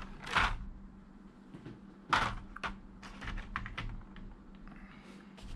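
Hard clear plastic clicking and clattering as a figure display-stand arm and a blister tray are handled. There are a few louder clattery bursts, the loudest about two seconds in, followed by quicker, lighter clicks.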